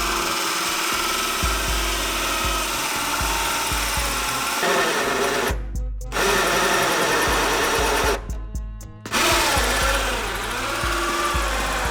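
Electric drill boring through a car's thick metal firewall, stopping briefly twice, with background music.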